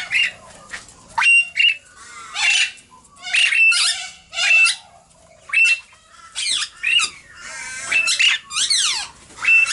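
Princess parrots calling: a string of short, harsh squawks, roughly one a second, many ending in a brief steady high note and some sweeping up and down in pitch.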